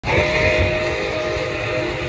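Milwaukee Road 261 steam locomotive's chime whistle sounding one steady chord, with a low uneven rumble underneath.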